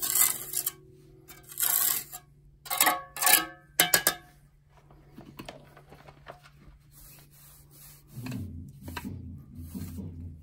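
Mason's jointer scraping along fresh mortar joints in a concrete block wall, tooling the joints: five or six short, loud strokes in the first four seconds, then lighter scrapes.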